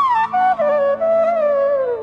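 Background instrumental music: a single melody line that bends and slides between notes, over a low steady drone, falling in pitch through the last second.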